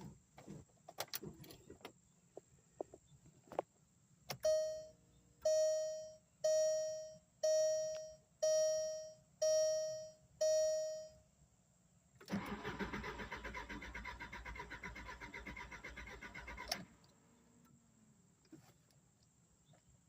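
2004 Volkswagen Beetle that won't start: a few clicks, then seven loud electronic warning beeps about a second apart, then the starter cranking the engine for about four and a half seconds. The engine does not catch, and the cranking cuts off abruptly.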